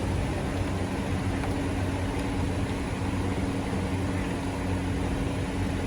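2013 Hyundai Sonata's four-cylinder engine running steadily, a constant low hum with mechanical noise above it.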